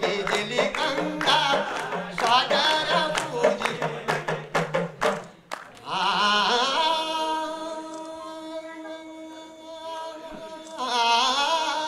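Male folk singer singing a Kumauni Nyoli, a mountain folk song, over steady strokes of a hudka hourglass drum and hand claps. About halfway through the drum and claps stop and he holds one long, wavering high note, then starts a new ornamented phrase near the end.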